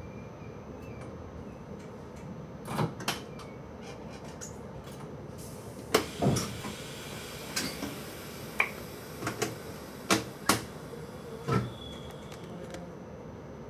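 Sharp clicks and knocks, about a dozen, inside a stopped train's driver cab, over a steady electrical hum with a faint high whine.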